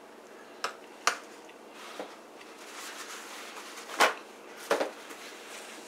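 A person eating: a few sharp clicks and taps of a utensil on a plate, mixed with chewing, the loudest tap about four seconds in.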